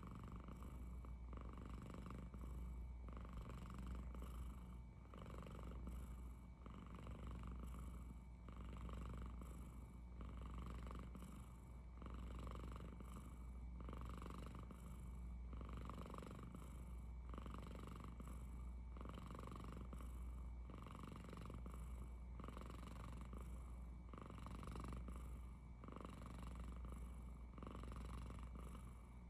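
Domestic cat making a soft purr-like rumble that swells and fades with each breath, about once a second. The owner wonders whether it is snoring.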